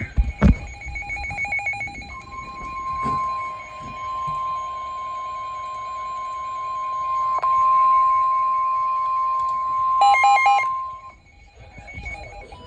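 NOAA Weather Radio sounding a severe thunderstorm warning. After a thump and a short patterned chirping of data tones, the steady 1050 Hz warning alarm tone sounds for about nine seconds, with a brief pulsing burst near its end before it cuts off.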